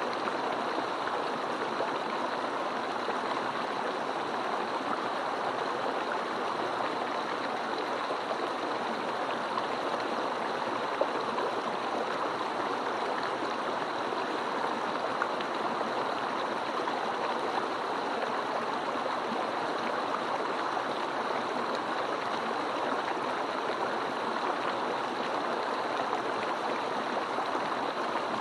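Rocky Mountain stream running water in a steady, even rush with no break.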